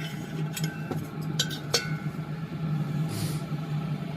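Scattered light metallic clicks and clinks of a tool working at the burner of a dismantled diesel air heater, where the clogged atomizing mesh is being pried out, over a steady low hum.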